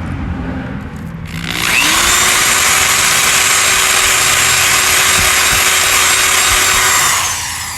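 Electric drill spinning up about a second in, running steadily with a whine for several seconds as the bit bores into the plastic prongs of a radio bezel, then winding down near the end.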